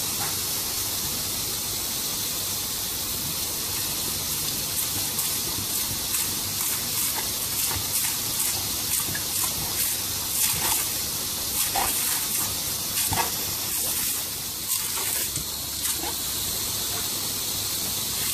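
Garden hose spraying a steady hissing jet of water, broken from about five seconds in by short sharp splashes and snaps as a dog bites at the stream.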